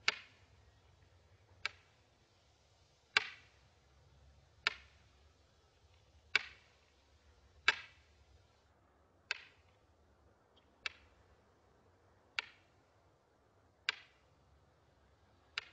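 A metal cartridge tapped upright on a desktop: a single sharp tap about every one and a half seconds, eleven in all, each with a short ring.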